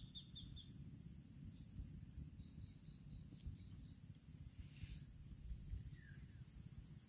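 Faint outdoor ambience: a steady high-pitched insect drone, with birds giving short quick runs of chirps and a few single falling chirps. A low rumbling haze sits beneath.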